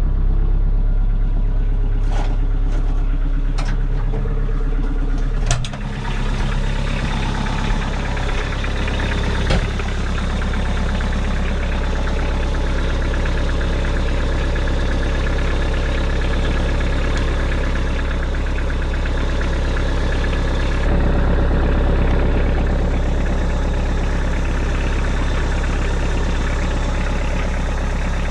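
Tractor engine running steadily, with a few sharp knocks or rattles in the first several seconds.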